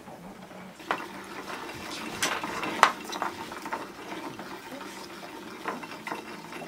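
Baitcasting reel being cranked to wind SpiderWire 30 lb braided line on from a spool turning on the wooden tabletop: a steady rasping whir that starts about a second in, with scattered clicks.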